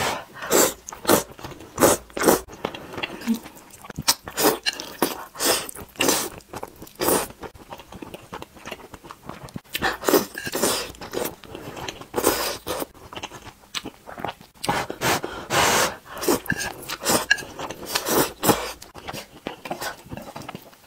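Close-miked eating of instant noodles: wet chewing and lip smacks in a quick irregular series, with several longer slurps as strands of noodles are drawn into the mouth.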